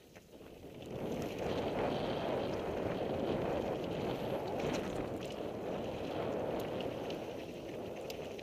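Downhill mountain bike (Devinci Wilson) rolling down a gravel singletrack, heard through an action camera's microphone. Wind rushes over the microphone, building over the first second as the bike picks up speed, and the tyres and frame give scattered clicks and knocks over the loose stones.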